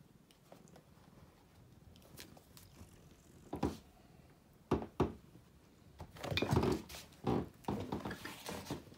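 Cats moving about on a plush cat-tree bed: a few dull thumps, then about two seconds of louder scuffling and knocking as a cat climbs up into the bed.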